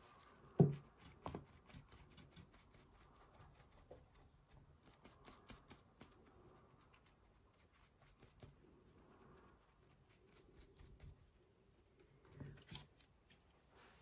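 Faint dabbing and rustling of a crumpled tissue stippled onto wet watercolour paper to texture the background, as many small quick ticks. A soft thump about half a second in, and another near the end.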